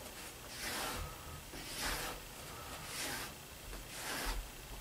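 Scratchy strokes of a marking tool drawn along a metal straight edge over wool blanket fabric, about one stroke a second, with a few soft thumps near the end.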